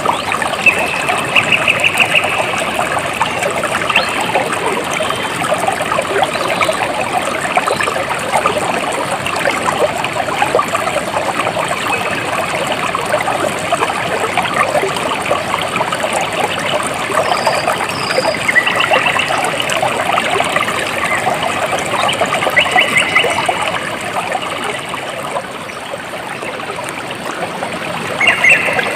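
Water trickling and babbling steadily over stones in a small stream, with short bursts of rapid high chirping heard a few times.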